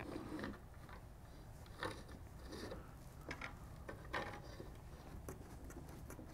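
Faint, scattered clicks and taps as screws are set by hand into the flat-pack panels and turned with a Phillips screwdriver.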